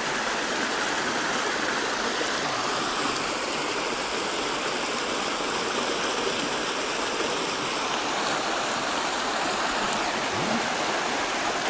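River water rushing over rocks, a steady, even rush.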